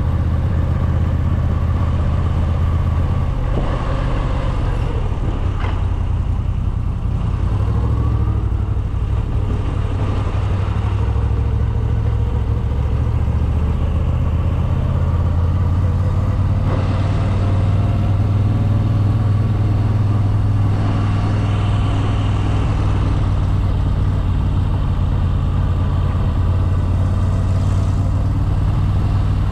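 Moto Guzzi V7 850 Special's air-cooled transverse V-twin running on its original exhaust, heard through a microphone inside the rider's helmet. The engine note changes about three seconds in and again near eight seconds, then holds steady.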